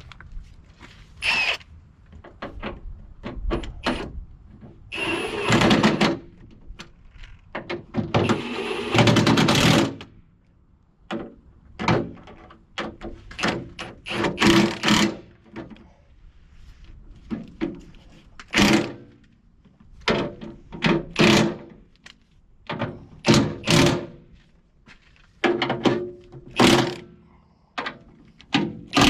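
Heavy hammer blows on the steel bodywork of a Cat 953C track loader, about twenty irregularly spaced strikes that each ring briefly, as bent metal is beaten back into shape. Two longer rasping noises come about five and nine seconds in.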